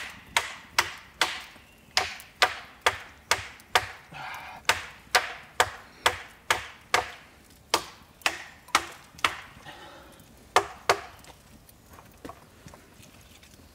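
A machete chopping into dry wood, sharp strikes about two a second that stop about eleven seconds in, followed by a few faint knocks.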